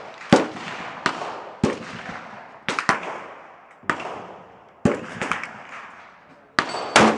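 H&K 91 .308 semi-automatic rifle being fired, about nine sharp shots at irregular spacing, each ringing out and fading over about half a second. The loudest shots come about a third of a second in and again near the end.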